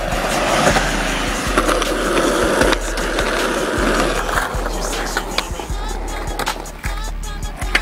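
Skateboard wheels rolling on pavement, with sharp clacks of the board, under music with a heavy bass beat.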